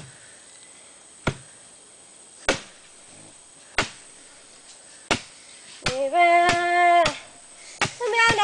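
Sago pith being pounded in a split sago trunk with wooden pounders: sharp thuds at first about every second and a quarter, then about twice as fast as both women strike in turn. About six seconds in, a voice holds one long note for about a second, and another voice with a wavering pitch starts near the end.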